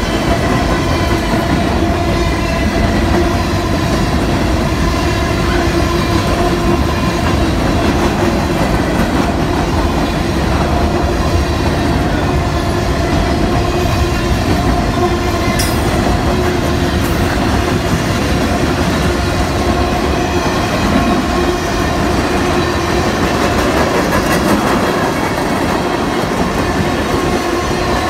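Freight train's covered hopper and tank cars rolling past close by: a steady loud rumble of steel wheels on rail, with a thin steady ringing tone held over it.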